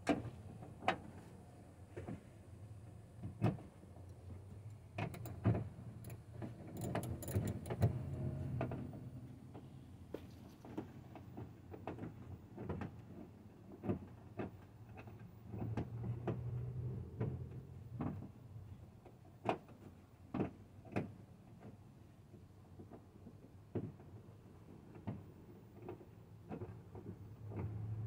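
Hands and a tool working inside the open door shell of a 2009 Chevy Silverado, its trim panel off, while the door handle is being replaced. Irregular clicks and knocks of metal and plastic parts come over a low steady hum.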